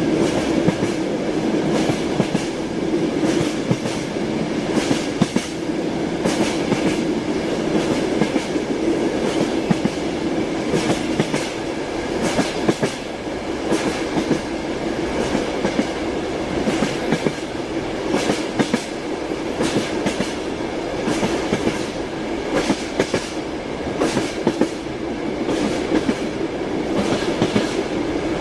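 Train wheels clattering over rail joints: the steady rumble of a moving train with repeated clacks throughout.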